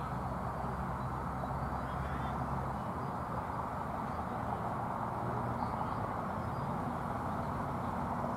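Steady outdoor background noise, with faint distant voices and a few faint bird chirps.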